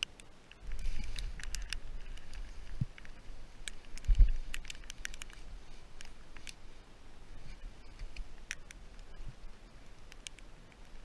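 Handling noise close to a body-worn camera: rustling and scattered clicks from heavy winter clothing and gloves, over a low rumble, with one louder thump about four seconds in.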